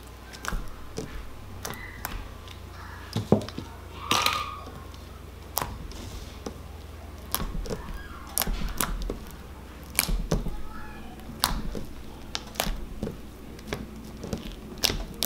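Homemade slime being stretched and kneaded by hand on a tabletop: many irregular sticky clicks, pops and squelches as it is pulled and pressed.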